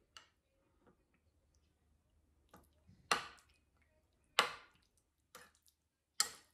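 A metal spoon clinking against a ceramic bowl while stirring raw chicken pieces in egg: a few sharp clinks spaced a second or more apart, the loudest about three, four and a half and six seconds in, with softer taps between.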